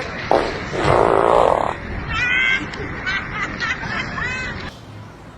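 A run of fart sounds: a loud raspy one about a second in, then several short squeaky ones that bend in pitch.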